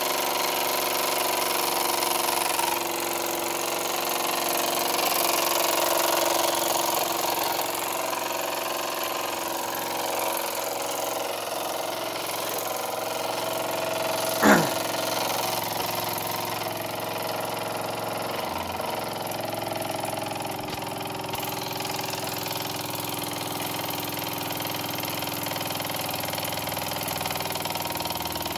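Wilesco toy steam engine running steadily with its flywheel spinning; it is an old engine with worn pistons. About halfway through, a brief sharp sound sweeps up in pitch.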